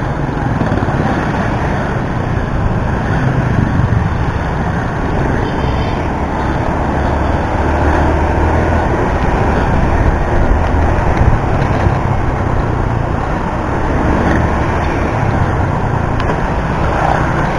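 Steady wind rush over an action camera's microphone while riding a motorbike, with the bike's engine running underneath and passing road traffic.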